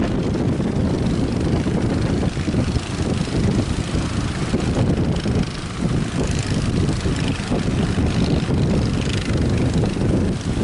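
Strong wind buffeting the microphone: a loud, uneven low rush that rises and falls without any steady engine tone.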